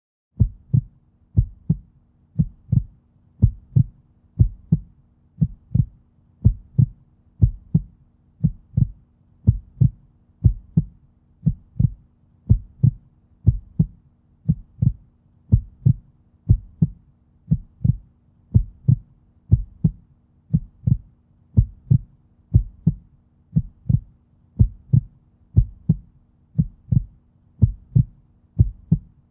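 Heartbeat sound effect: a steady, deep double thump, lub-dub, about once a second, around sixty beats a minute.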